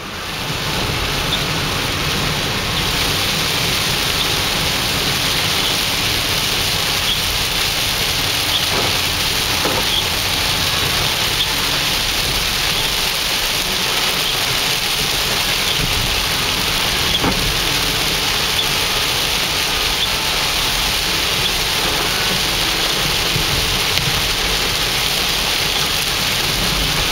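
Steady rain falling on a car's roof and windshield, heard from inside the cabin.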